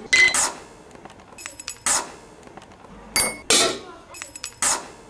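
Lid of an enamelled steel pot knocked and rattled on its pot: about five sharp metallic clinks that ring briefly, with light ticking in between.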